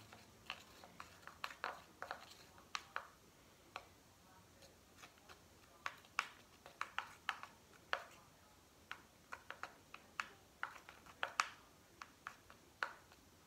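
Homemade slime being stirred in a small plastic bowl with a stick: a faint, irregular string of sticky clicks, about two or three a second.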